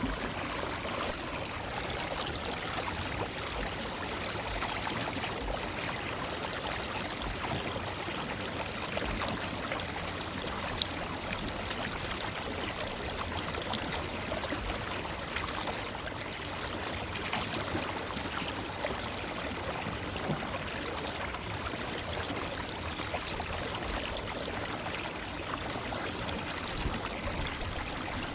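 A forest river flowing over stones, a steady rushing and babbling of water with one brief click about eleven seconds in.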